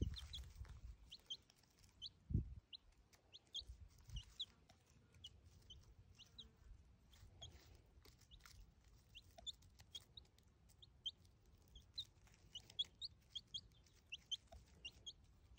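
A young chicken chick peeping faintly: short, high, rising cheeps scattered irregularly, at times several a second. A couple of dull low thumps come in the first few seconds.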